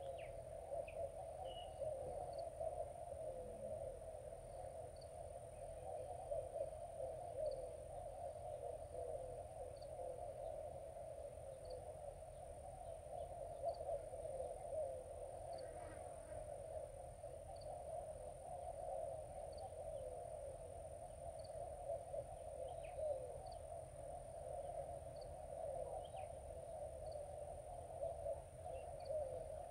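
Faint, steady outdoor ambience at a river's edge: a continuous low drone with a soft high chirp repeating about every two seconds and a few faint animal calls.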